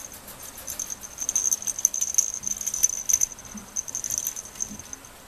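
A small toy rattle shaken quickly by hand, giving a high, jingling ring with rapid clicks. It is loudest in the middle and dies away near the end.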